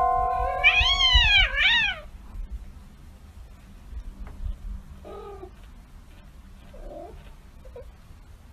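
A cat yowls loudly, a long rising-and-falling cry followed at once by a shorter one, over steady held tones that stop about a second and a half in. Faint short sounds come later.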